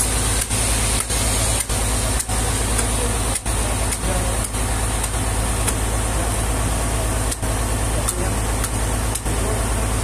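An engine running steadily with a low drone, dipping briefly now and then, with a few faint sharp taps of a hammer striking the wood.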